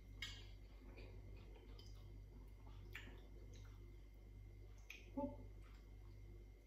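Quiet eating sounds: a few faint clicks of a metal fork against the ceramic bowl and plate, with a brief low hum about five seconds in.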